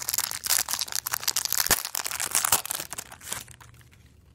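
Foil wrapper of a 1999 Donruss football card pack crinkling and tearing as it is ripped open, a dense run of crackles that dies away after about three and a half seconds.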